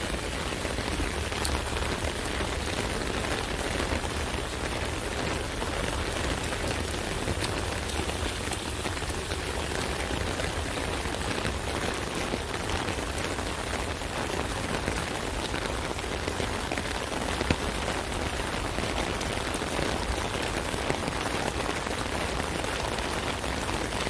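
Rain falling steadily on an umbrella: an even, dense hiss of countless small drop impacts, with a few sharper single ticks standing out now and then.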